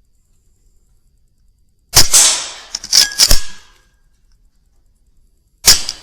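Weihrauch HW100 .22 pre-charged pneumatic air rifle shooting rats: several sharp cracks of shots and pellet strikes, one about two seconds in with a fading tail, a close pair about a second later, and another near the end.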